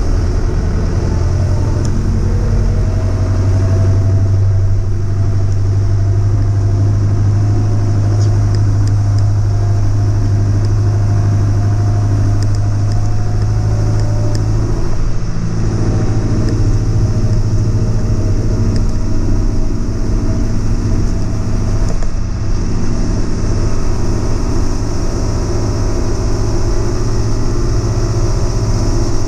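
Engine running steadily at an even speed, a deep constant hum with no pauses.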